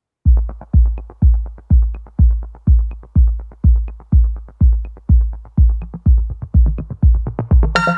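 Electronic dance music: a deep kick drum on a steady beat, about two a second, with a light high tick once a second. A fuller layer of synthesizer chords comes in just before the end.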